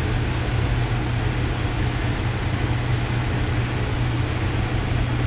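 Steady low hum with an even hiss over it, with no distinct knocks or clicks.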